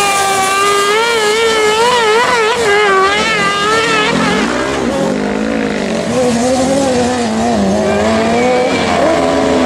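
Engines of off-road racing buggies revving up and down through the corners of a dirt track, the pitch wavering quickly with each throttle lift. About four seconds in, a deeper engine note takes over.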